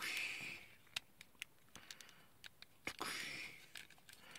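Small plastic clicks and taps from a transforming action figure's joints and parts being turned by hand, with two short soft hissing rustles, one at the start and one about three seconds in.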